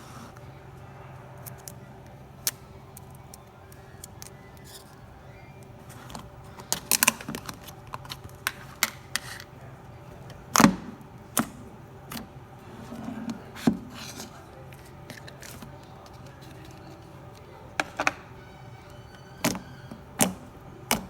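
Slime being handled, giving scattered sharp clicks and pops, most of them from about six seconds in and again near the end, over a faint steady background tone.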